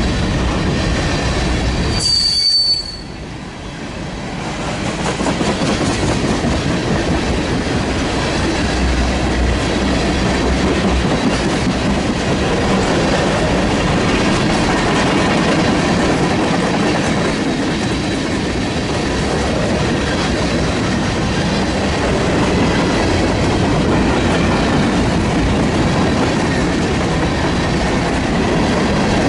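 Freight train cars rolling past on the rails, with a short high-pitched wheel squeal about two seconds in.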